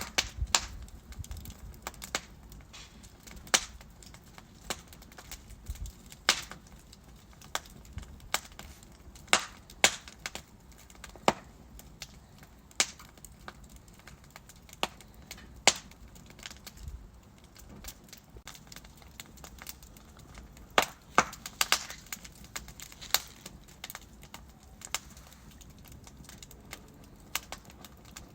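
Wood fire in a fireplace crackling: sharp irregular pops from the burning logs, about one or two a second with a few quick clusters, over a faint steady hiss.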